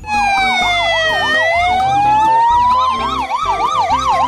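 Ambulance siren sounding two patterns at once: a fast up-and-down warble, about three cycles a second, over a slow wail that falls, rises and falls again. It starts abruptly.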